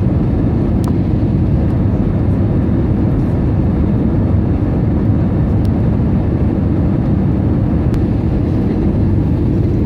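Airbus A320 cabin noise: a steady, low rumble of engines and airflow heard from inside the cabin, with a few faint clicks.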